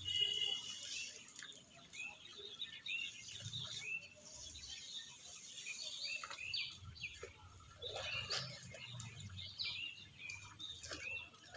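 Birds chirping in short repeated calls, with a longer held call right at the start.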